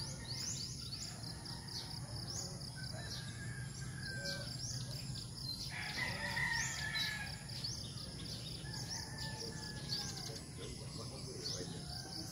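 A rooster crowing once, about six seconds in, over repeated high chirping and a steady low background hum.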